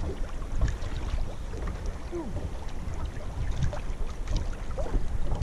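Wind rumbling on the microphone over water lapping against a small kayak's hull, with a few light ticks and knocks.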